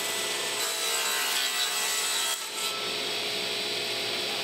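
Table saw running and cutting through a wooden board, a steady whine from the blade with the rasp of the wood being cut.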